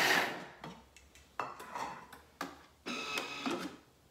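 A Thermomix turbo pulse chopping apple, dates, almonds and coconut chips, a short blade burst that stops about half a second in. Then come several clicks and knocks as the mixer's lid is unlocked and lifted off.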